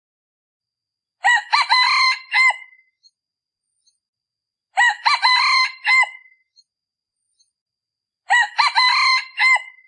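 Male decoy junglefowl crowing: three short, clipped crows about three and a half seconds apart, each the same, as a lure call for wild junglefowl.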